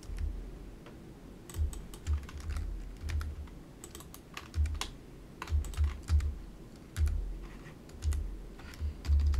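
Computer keyboard keys being pressed in irregular short runs as shortcuts are typed, each keystroke a sharp click with a low thump.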